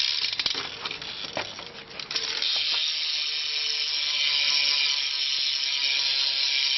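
BMX rear cassette hub's driver and pawls ticking as the rear wheel freewheels. It starts as scattered clicks, then about two seconds in becomes a fast, even ticking buzz that runs for about five seconds.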